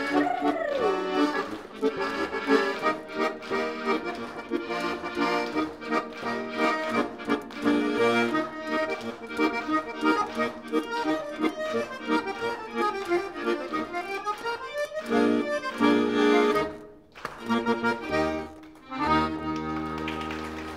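Excelsior piano accordion playing a solo piece, with a quick run of notes down and back up about two-thirds of the way through. After a short break it closes on a long held chord over bass notes.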